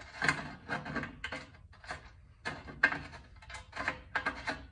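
Threaded M26x1.5 plug being turned by hand into freshly tapped threads in a magnesium valve cover: a run of short gritty scrapes, about three a second and uneven, as the threads rub. The owner thinks there is some gunk in the threads.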